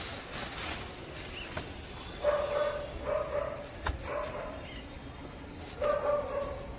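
A dog barking: three short barks in quick succession a little over two seconds in, and one more near the end.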